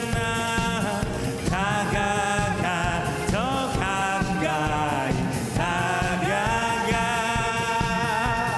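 Live rock band: a male singer holding long notes, sliding up into each one, over electric guitar and bass.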